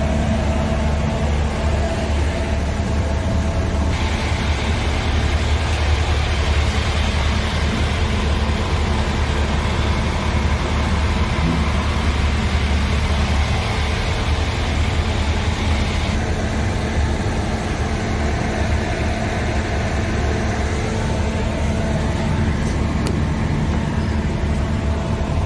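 Scania R tractor unit's diesel engine idling steadily, a low even hum heard from inside the cab. A hiss rises over it about four seconds in and drops away again about sixteen seconds in.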